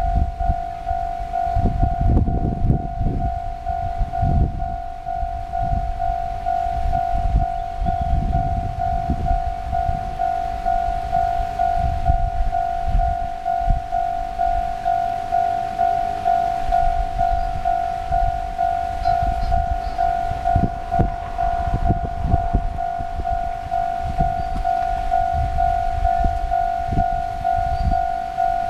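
Japanese railway level-crossing warning bell ringing, a steady repeating electronic ding that signals the crossing is closed for an approaching train. Wind buffets the microphone in gusts underneath.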